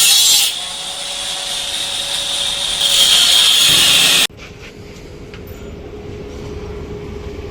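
A power tool cutting, with a loud hissing cut that stops abruptly about four seconds in, followed by a quieter steady hum.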